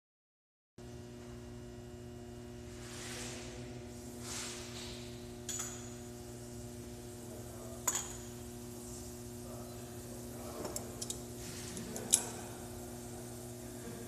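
Steady electrical hum, with two short hisses of gas from a brazing torch a few seconds in and several sharp clicks and clinks later, the loudest near the end, as the torch is handled and fails to light.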